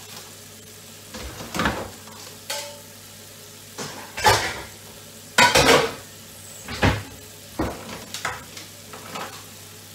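Pots, pans and dishes clattering and knocking against each other and the sink as they are washed up, in a series of irregular clatters, some ringing briefly, over a steady low hum.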